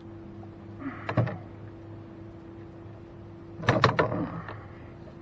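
Knocks and rattles from a landing net and a freshly caught bass being handled in a small boat, in two short bursts: a brief one about a second in, a louder one just before the four-second mark. A steady hum runs underneath.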